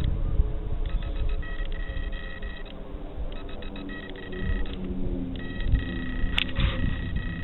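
Eerie groaning sound: low, wavering drawn-out tones over a rumble, with bursts of high, beep-like tones about every two seconds and a sharp click about six and a half seconds in.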